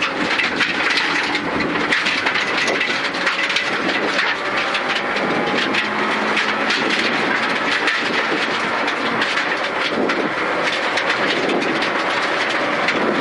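Suzuki Ignis Sport rally car's 1.5-litre four-cylinder engine running hard at high revs, heard from inside the stripped cabin. Gravel clatters against the underside throughout.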